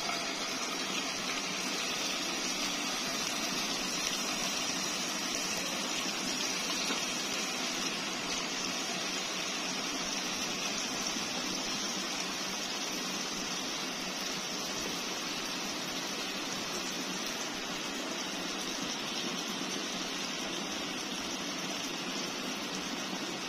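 Mutton liver (kaleji) pieces sizzling steadily as they fry in hot ghee in a frying pan.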